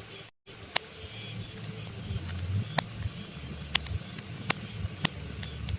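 Pine logs burning in a fireplace: a steady low rumble of flames with sharp crackles and pops, about one a second, the loudest about four and a half seconds in. All sound cuts out for a moment about a third of a second in.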